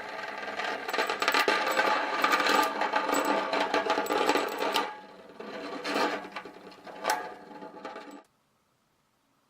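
Small magnets rattling and buzzing against each other between two plexiglass plates, amplified through a djembe drum head, with a fast, dense chatter of clicks over a ringing tone. The rattle builds about a second in and is loudest for the next few seconds. It then comes back in weaker surges and stops suddenly near the end.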